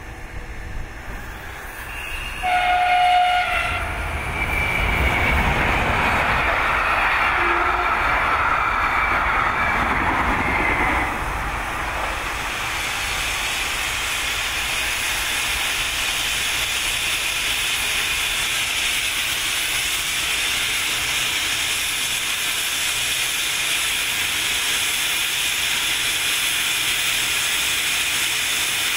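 Steam locomotive CFL 5519 sounds its whistle once, a chord held for about a second and a half. Then it moves past with a loud hiss of steam from its open cylinder drain cocks, which eases a little about eleven seconds in and then runs on steadily.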